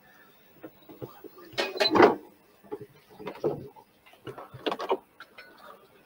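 A ceremonial hammer knocking on a heavy wooden church door, the ritual blows that open the Door of Forgiveness. The loudest blow comes about two seconds in, followed by quieter knocks.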